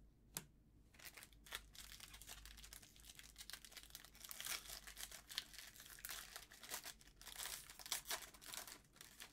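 Foil trading-card pack wrapper crinkling and tearing as it is handled and opened: a faint, quick run of crackles and rustles.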